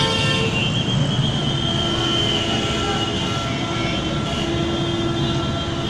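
Steady loud rumble of a heavy vehicle running close by, with a steady high whine over it.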